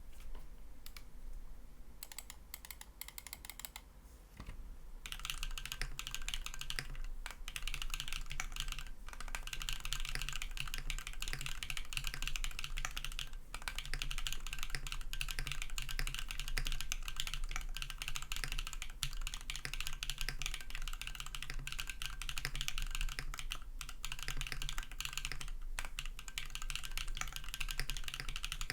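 Typing on a KMG B60 custom 60% keyboard with a full carbon-fibre plate, top mount, BSUN Raw switches lubed with Krytox 205g0, and JC Desko PBT keycaps. It starts with a few scattered keystrokes, then from about five seconds in turns to fast continuous typing with a few brief pauses.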